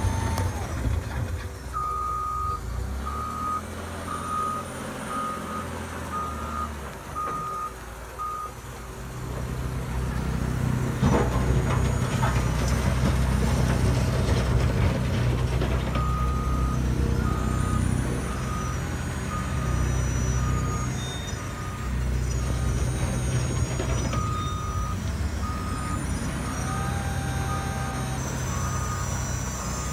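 Sound module of a radio-controlled toy wheel loader: a simulated diesel engine running with a steady low hum, and a reversing beeper sounding in three spells of evenly spaced beeps. The engine sound gets louder about ten seconds in.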